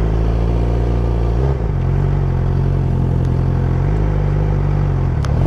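Sport bike's engine running steadily at low revs while the motorcycle rolls slowly, with a brief dip in the engine note about a second and a half in.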